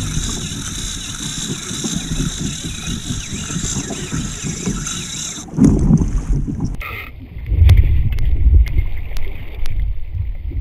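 Spinning reel's drag screaming steadily as a big fish strips line that the angler cannot stop; the whine cuts off suddenly about five and a half seconds in. Wind buffeting on the microphone and a few sharp clicks and knocks of handling follow.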